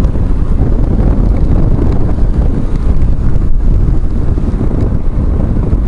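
Steady low wind rush and rumble on a microphone inside a motorcycle helmet while riding at road speed.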